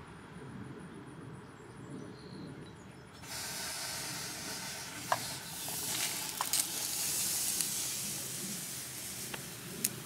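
Hunter PGP rotor sprinkler heads spraying water: a steady hiss that comes on suddenly about three seconds in as the zone starts, with a few faint clicks.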